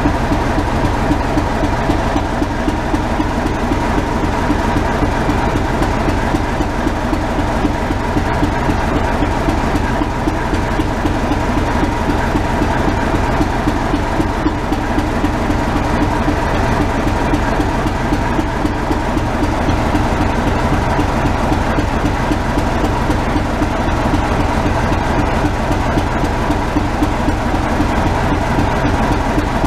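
Railway locomotive running steadily with a continuous, fast low pulsing and steady tones, without a break.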